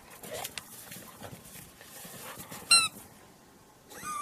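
A dog giving one short, loud, high-pitched squeak about two-thirds of the way in, then a wavering high whine near the end, over faint shuffling.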